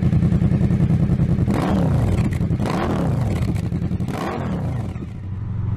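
Honda VFR800X Crossrunner's V4 engine revving, its pitch rising and falling back three times, then settling lower and steadier near the end.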